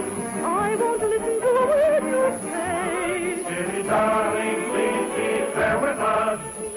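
Operetta song from an old radio broadcast: a singer holding and shaping notes with a wide vibrato over an orchestra, with no pause.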